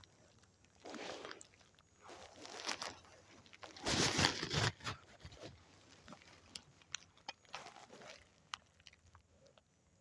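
Footsteps crunching through dry leaves and undergrowth: a few slow, heavy steps, the loudest about four seconds in, then faint twig snaps and clicks.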